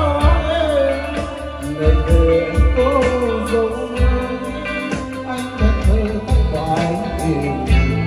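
Live band playing an instrumental passage through a large PA speaker system: a gliding melody line over electric bass, keyboard and a steady drum beat.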